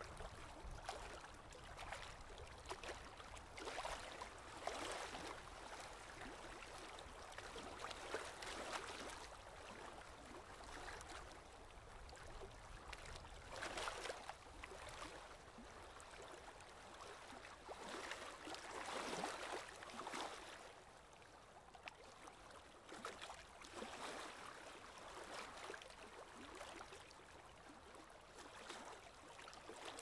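Nature-sound ambience of running, splashing water: a steady wash that swells and eases every few seconds.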